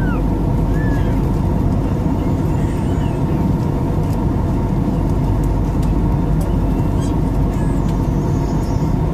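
Steady cabin noise of a jet airliner in flight: engines and rushing air making a constant low hum, with a few faint steady tones over it.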